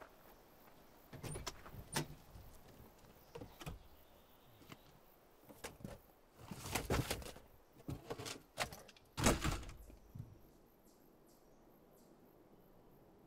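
Car door and bodywork of a crash-damaged station wagon being handled: an irregular string of knocks and clunks with short rustles, the loudest about nine seconds in, stopping a little after ten seconds.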